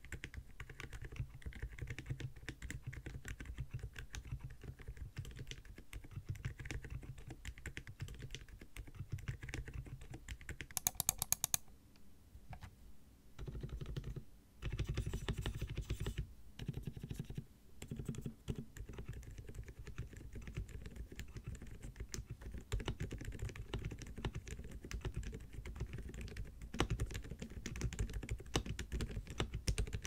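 Typing on a Zuoya GMK67 mechanical keyboard fitted with Outemu Silent Peach silent switches: a steady run of soft keystrokes. The first part is the unlubed build with the tape mod; typing stops briefly about twelve seconds in, then carries on with the lubed switches.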